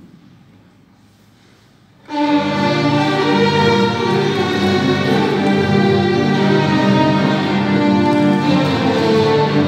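Small string ensemble of violins and cellos playing classical music. It enters together suddenly about two seconds in and plays full, held notes after a quiet start.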